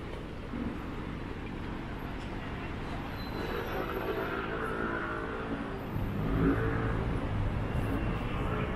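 Road traffic from a busy city road below: a steady low rumble, with a vehicle engine rising and getting louder about halfway through.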